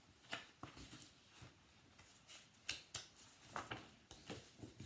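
Faint handling sounds of a hardback picture book being turned and opened: a scatter of short taps and paper rustles.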